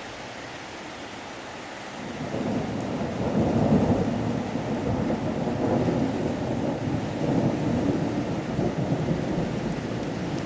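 Steady rain, then about two seconds in a long roll of thunder builds, peaks a couple of seconds later and rumbles on, slowly fading.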